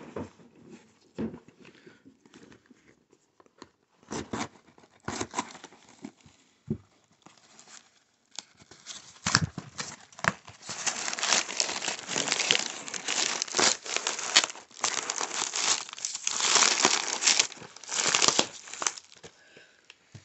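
Paper packaging being opened: a few scattered clicks and rustles, then, from about halfway through, a long stretch of loud tearing and crinkling of a kraft padded mailer and packing paper.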